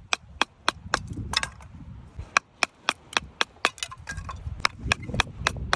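Sharp woody cracks, some coming in even runs of about four a second, over a low rumble.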